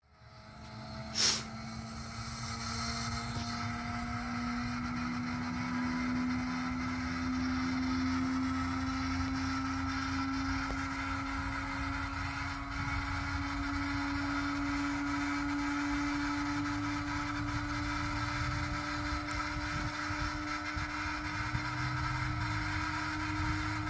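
1940 Stearman biplane's radial engine running at idle on the ground: a steady throb with a tone that creeps slowly upward in pitch. A single sharp crack about a second in is the loudest thing.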